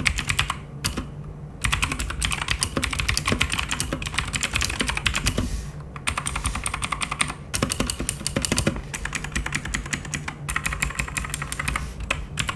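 Fast typing on a Keychron mechanical keyboard fitted with clicky Gateron Blue switches: a dense run of sharp key clicks, broken by a few short pauses, the longest about a second in.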